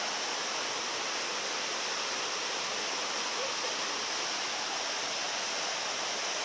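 A waterfall pouring, a steady even rush of falling water.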